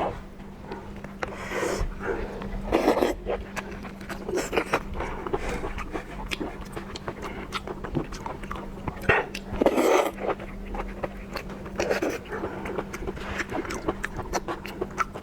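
Close-up wet chewing and lip-smacking of raw lobster sashimi dipped in sauce, with many small sharp clicks and a couple of louder bursts around three and ten seconds in.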